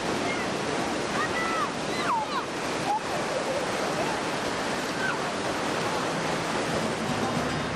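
Surf washing steadily onto a beach, with children's high shouts and squeals from play in the waves, several in the first couple of seconds and one more about five seconds in.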